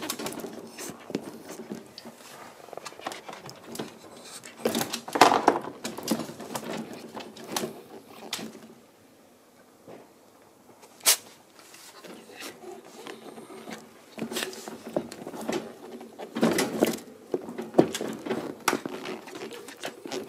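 White Shiba Inu puppy gnawing and mouthing a toy in a wire crate while teething: irregular clicks, knocks and scrabbling of teeth, paws and crate bars, with a quieter lull near the middle broken by one sharp click.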